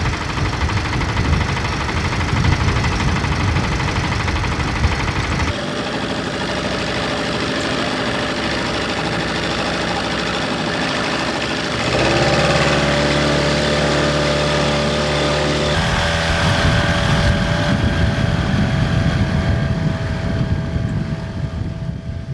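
Small outboard motor running as the boat motors across the water. Its note changes abruptly a few times, with a steadier, more tonal stretch in the middle.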